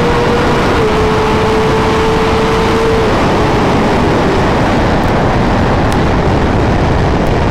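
Sportbike at speed with heavy wind rush on the microphone over a steady engine drone. The engine note dips slightly about a second in and fades out under the wind about three seconds in.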